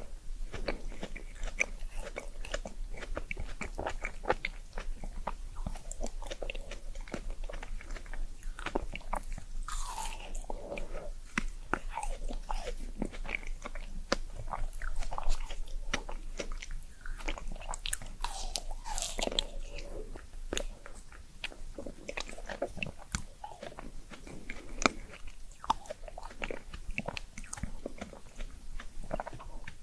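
Close-miked eating for ASMR: a person biting and chewing chocolate and pandan desserts, with crunchy bites and many small mouth clicks.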